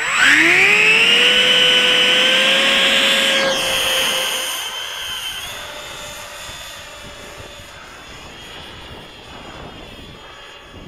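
The 70mm electric ducted fan of a DuraFly Zephyr jet glider spools up to full throttle with a rising whine and holds a steady, loud high whine for a few seconds. Then the whine shifts in pitch and fades as the hand-launched jet flies away.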